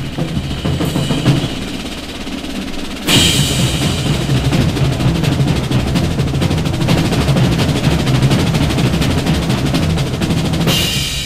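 Music driven by drums, with a rapid, dense drum roll that comes in suddenly about three seconds in.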